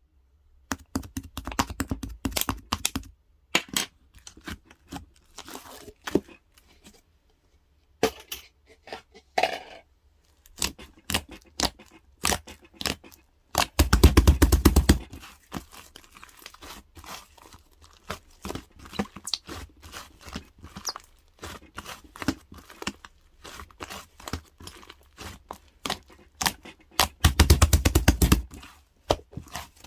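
White clay slime being squeezed and pressed by hand, giving off quick wet clicks and pops, with three denser runs of crackling: about a second in, around the middle, and near the end.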